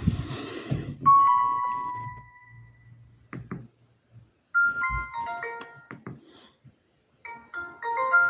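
Alcatel Onetouch 2010X flip phone playing short electronic alert tones from its speaker: a two-note chime about a second in, then two short melodic phrases of a few quick notes each, one around the middle and one near the end. Clicks and a thump from handling the phone come in between.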